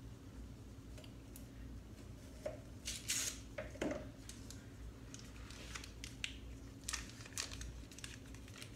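Knife cutting a stick of butter on a wooden cutting board: scattered short scrapes and taps, loudest about three seconds in.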